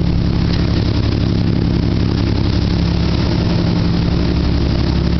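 Boat engine running steadily, an even low drone that holds the same pitch throughout.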